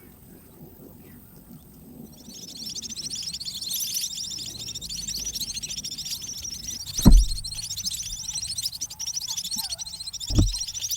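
Munia (emprit) nestlings begging to be fed: a dense, rapid, high-pitched chattering that starts about two seconds in and keeps on. Two sharp knocks cut through it, the louder one about seven seconds in.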